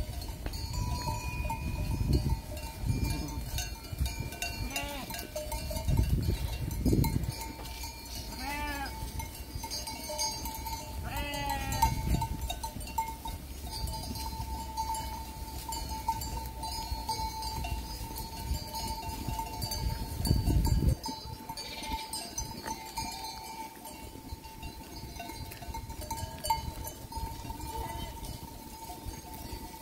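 A grazing sheep flock's bells clinking steadily, with a couple of sheep bleats about a third of the way in. Bursts of low rumble come and go on the microphone.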